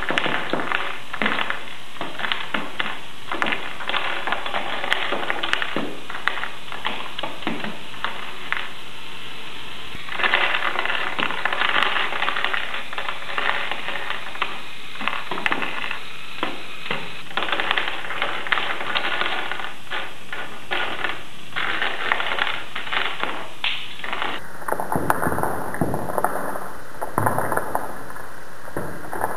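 Battery-powered Lego rubber-band minigun firing: its electric motor and worm-gear gearbox rattling with a dense stream of clicks as rubber bands release, with wooden blocks clattering as they are knocked down. It gets louder about ten seconds in.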